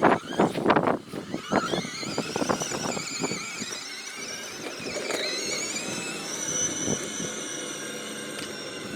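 Electric ATV's motor whining, the high pitch sliding down and climbing again as it slows and speeds up, then holding steady. A run of short knocks and rattles comes in the first few seconds.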